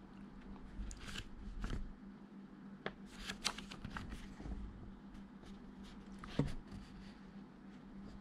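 Paper instruction leaflet being handled and its pages turned and unfolded: scattered short crisp rustles and crinkles over a faint steady hum.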